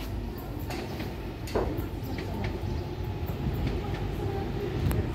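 Regional multiple-unit train approaching the station from a distance: a low, steady rumble, with a few sharp clicks over it.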